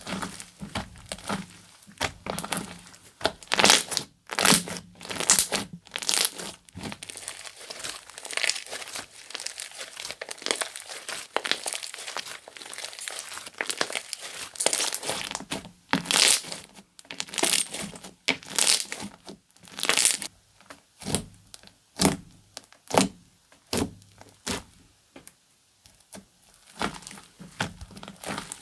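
Slime being squished, pressed and stretched by hand, giving irregular sticky crackles, pops and squelches.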